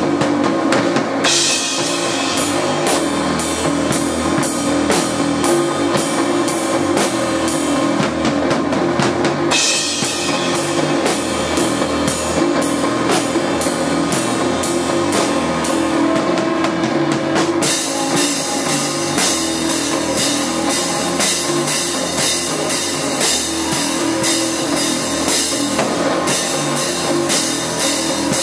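Rock band jamming, led by a drum kit played to a steady beat, with cymbals and electric guitar. The cymbals thin out about a second in, come back around ten seconds, and become a steady wash from about eighteen seconds on.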